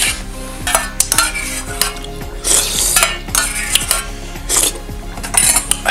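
Metal spoon scraping and clinking against a small stainless steel bowl, many quick irregular scrapes as the last of the food is scooped out.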